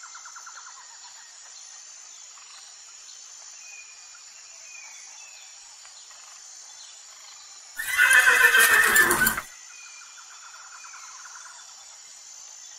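A horse whinnies loudly once, about eight seconds in, for about a second and a half, the call falling in pitch toward its end.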